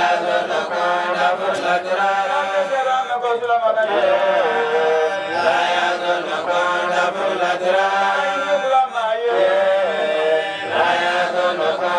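Voices chanting a slow, melodic chant, with long held notes that slide up and down.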